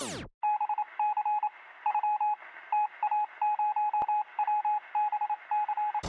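A falling synthesizer sweep cuts off, then electronic beeps at one steady pitch sound in irregular short and longer runs, like Morse code, with a thin, radio-like tone. A single sharp click comes about two-thirds of the way through.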